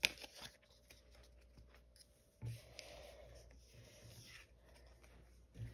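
Trading cards being handled and laid down on a table: faint rubbing and sliding, with a sharp click at the start and soft taps about two and a half seconds in and near the end.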